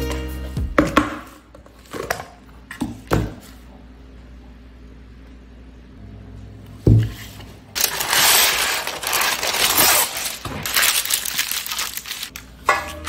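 Baking parchment paper crinkling and rustling as hands press it into a metal baking tray, loud and dense for about the last five seconds. Before that, a few light clicks and a single knock as a food container is handled.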